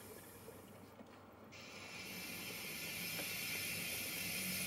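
O gauge model railway goods wagons rolling along the track: a steady hiss and rumble that grows louder from about a second and a half in, with a few faint clicks.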